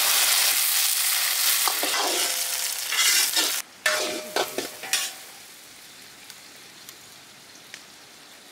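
Shallots, garlic and dried red chillies sizzling in hot sesame oil in a wok, stirred with a metal ladle that scrapes and clinks against the pan. About five seconds in, the loud sizzle falls to a faint hiss.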